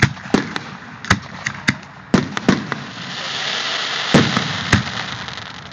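Aerial fireworks shells bursting overhead: about a dozen sharp bangs at uneven intervals, the loudest a little over four seconds in, with a hissing rush that swells from about three seconds in and then fades.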